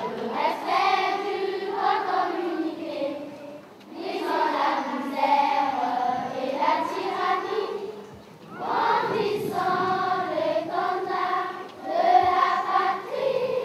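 A group of young children singing together, in four phrases of about three to four seconds each, with short breaks between them.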